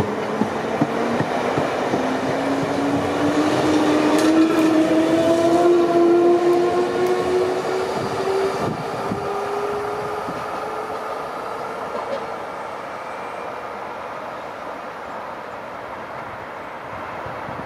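Electric train accelerating, its traction motors whining with a pitch that rises steadily, and the wheels clicking over rail joints. It is loudest about five seconds in, then fades as it draws away.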